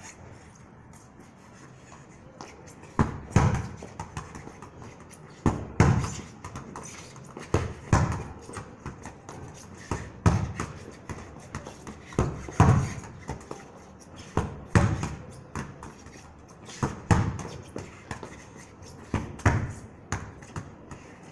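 A football being struck with the foot against a wall and controlled on the rebound, again and again. The thuds come in pairs about half a second apart, a pair every two seconds or so, starting about three seconds in.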